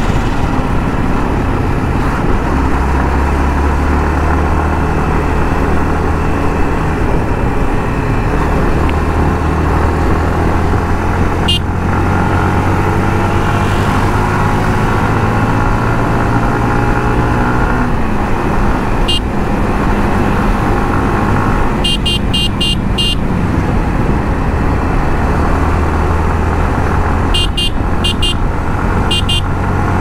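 Yamaha MT-15's 155 cc single-cylinder engine running on the move, its pitch rising and falling as the throttle and gears change. Short high horn beeps sound now and then, with quick runs of several beeps in the last third.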